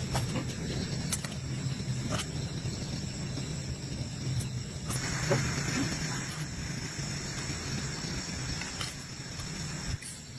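Insects chirring steadily in high, even tones that grow stronger about halfway through, over a low steady rumble, with scattered light ticks.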